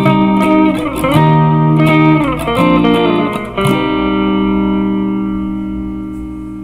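Guitar music: plucked notes, several of them sliding in pitch, then a held chord from about halfway through that rings and slowly fades.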